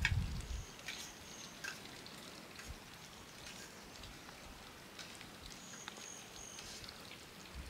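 Faint outdoor ambience with scattered small ticks and clicks, and two brief high, steady whistles: one about half a second in, the other about five and a half seconds in.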